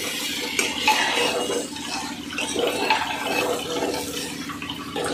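Metal spatula stirring vegetables in a pressure cooker, scraping and knocking irregularly against the pot, over the steady hiss of the vegetables frying in the masala.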